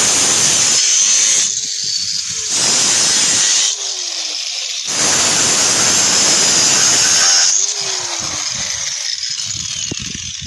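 Power tool cutting through a steel bar, the cutting noise coming in three loud spells with quieter running between and easing off near the end.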